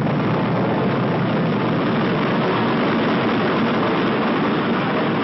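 Titan IIIC rocket at liftoff, its two solid-fuel boosters firing: a loud, steady, unbroken rumble of rocket exhaust.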